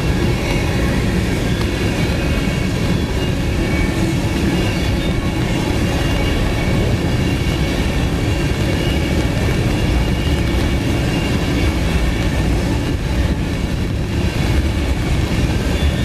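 Freight train of tank cars rolling steadily past: continuous rumble and clatter of steel wheels on the rails, with faint high steady tones above it.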